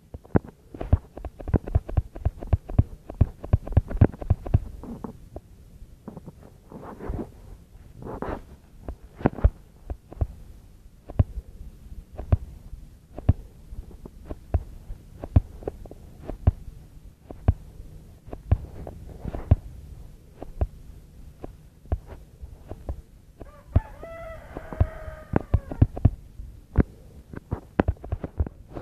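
Irregular knocks, taps and thumps of craft materials being handled and worked, dense for the first few seconds and then scattered. About four-fifths of the way through comes a drawn-out pitched sound lasting a couple of seconds.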